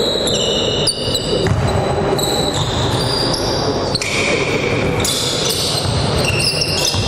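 Basketball being dribbled on a hardwood gym floor, with many short, high sneaker squeaks as players shuffle and cut around the court.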